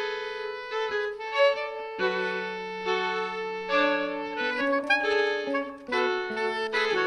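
Soprano saxophone playing a melody over held notes from the other instruments of a small folk ensemble, performed live.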